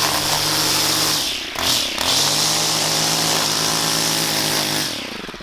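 Gas string trimmer engine running at full throttle. About a second and a half in, the throttle is let off and the pitch drops, then it revs back up. Near the end it dies away.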